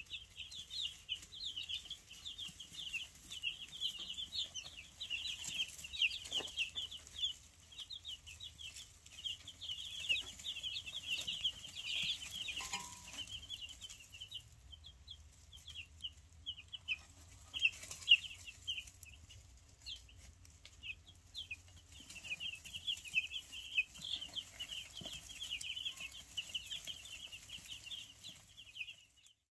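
A flock of three-week-old Freedom Ranger chicks peeping: many short, high chirps overlapping in a busy chorus that thins out for a few seconds in the middle, with one sharp tap just past the middle.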